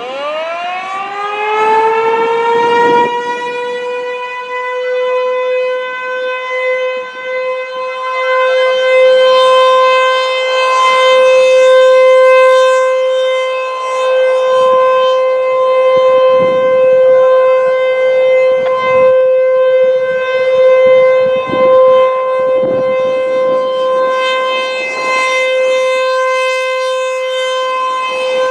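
ASC T-128 outdoor warning siren on its monthly test. It winds up over the first few seconds to full pitch, then holds one steady tone while its loudness swells and fades.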